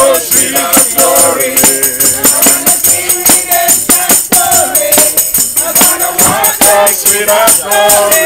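Group singing of a song with a tambourine keeping a quick, steady beat of several jingling strokes a second.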